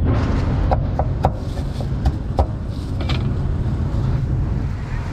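Cleaver knocking on a round wooden chopping board as green fruit is sliced: about six sharp, irregular knocks in the first three seconds, then they stop. A steady low hum of street traffic runs underneath.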